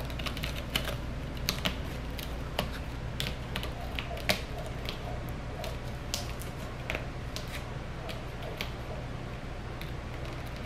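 A cat's claws catching and scraping on a sisal rope scratching post, making irregular sharp clicks and scratches, the loudest about four seconds in.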